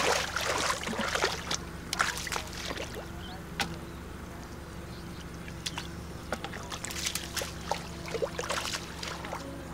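Wet mud squelching and sloshing with scattered splashes and clicks as hands grope in shallow muddy water and feet wade through it, busiest in the first second or two and again later on. A steady low hum runs underneath.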